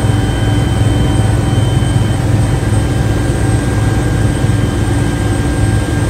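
Helicopter in flight heard from inside the cabin: a loud, steady low drone of rotor and turbine, with a thin high whine that stops about two seconds in.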